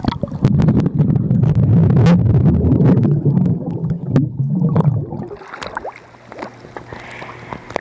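Water and air bubbles churning, heard through a microphone held underwater in a swimming pool: a loud low rumble for about the first five seconds, then quieter gurgling.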